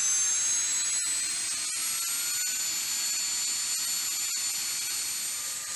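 CH-47 Chinook's turbine engine start-up: a high whine that slowly rises in pitch as the turbines spool up.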